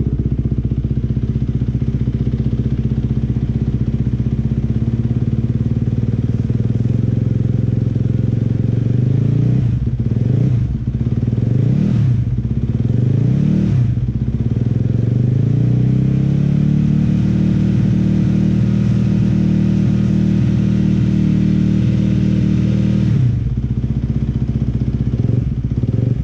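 Yamaha YZ250F single-cylinder four-stroke engine running on a stand, freshly rebuilt. It idles steadily, then gets three quick throttle blips about ten to fourteen seconds in. Then it is brought up to a higher speed and held there for several seconds before dropping back to idle near the end.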